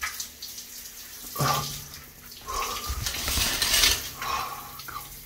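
A shower running over a person's head and body, the spray noise swelling in the middle. A few short voiced sounds come from the person under the cold water.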